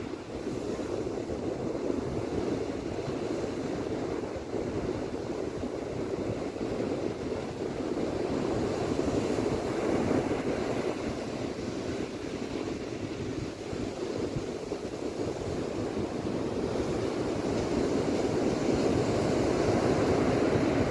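Ocean surf breaking and washing up a beach, a steady rush of waves that swells louder about ten seconds in and again near the end, with wind rumbling on the microphone.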